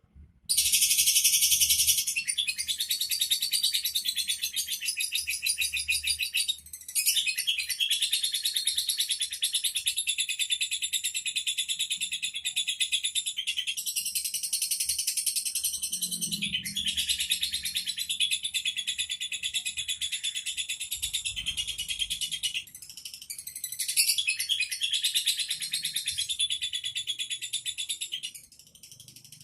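Competition lovebird singing a long, fast, high-pitched chattering trill that runs on almost without a break, dipping briefly twice and fading near the end.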